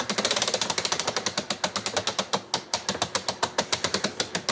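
Keter Dynamic Turn and Go composter's plastic drum being turned, its turning mechanism clicking rapidly like a ratchet. The clicks slow slightly and stop near the end.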